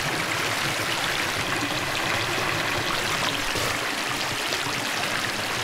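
Small hill stream (chhara) running steadily over rocks, a continuous sound of flowing water.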